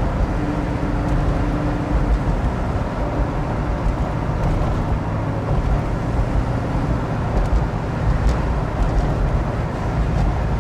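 Interior sound of a 1969 Shelby GT500 on the move: its 428 Cobra Jet V8 running at a steady cruise with a low drone, mixed with road and tyre noise.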